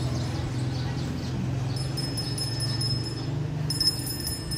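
Small metal bells jingling in two runs, the first starting about two seconds in and the second near the end, over a steady low hum.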